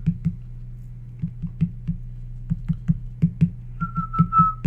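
Computer keyboard typing: irregular clicks of keys over a low steady hum. About four seconds in, a person starts whistling a string of short notes on nearly one pitch.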